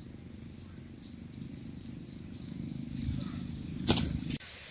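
A steady low rumble, then about four seconds in a short burst of loud splashing at a fishing net being worked in shallow muddy water, cutting off abruptly.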